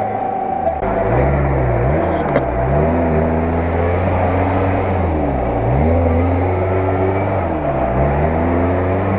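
Lada Niva engine revving up and falling back several times while the car churns, wheels spinning, through deep mud. A steady engine note gives way abruptly to these revs just under a second in.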